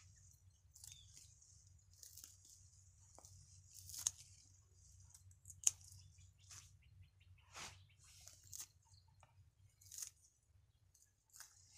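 Scissors snipping through bunches of water spinach stems, one short sharp snip every second or so, with leaves rustling in the hand.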